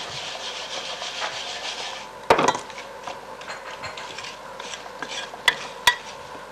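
Mixing in a stainless steel bowl: a scraping, rubbing sound for about two seconds, then a sharp knock, and two light clinks near the end.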